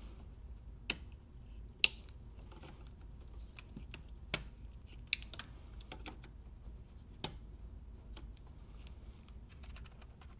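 Irregular sharp plastic clicks and light rattling as engine wiring harness connectors are handled and pushed back into their sockets, with about five louder snaps spread through.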